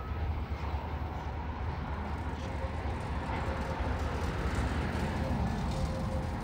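Container wagons of a freight train rolling past: a steady low rumble of steel wheels on rail, with a few faint clicks.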